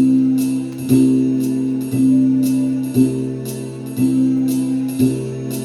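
Instrumental hip hop backing beat between spoken verses: sustained low notes changing about once a second, with a light jingling percussion hit about twice a second.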